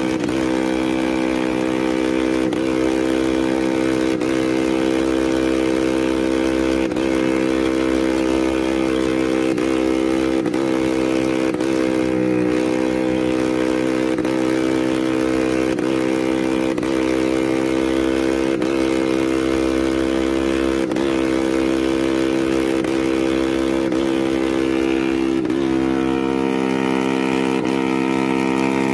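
Two-stroke Vespa scooter engine idling steadily.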